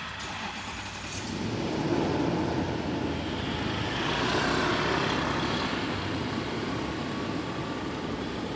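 A motor vehicle passing: engine and road noise swell about a second in, hold for a few seconds, then ease off.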